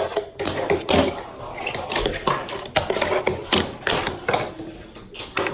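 Skateboard clattering on hard ground: a run of irregular sharp clacks and knocks from the board and wheels.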